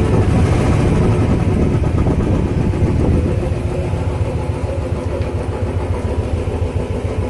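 Royal Enfield 350cc single-cylinder engine idling steadily with a fast, even thump, a little quieter from about three seconds in. It runs after the timing gears were refitted, and the mechanic judges it much improved, with less of the knocking it had before.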